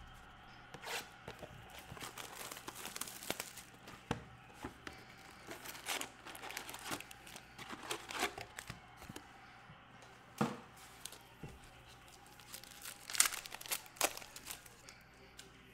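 Packaging of a box of Contenders football cards being torn open and crinkled by hand, in short irregular rips and rustles.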